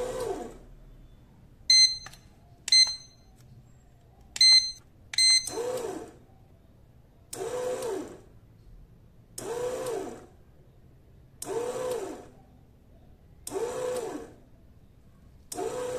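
Arno bread maker's kneading motor running in short bursts of about a second, roughly every two seconds, each with a whine that rises and falls. This is the machine's intermittent kneading stage, which shows the repaired control board is driving the motor. Four short electronic beeps from the control panel come before the motor starts.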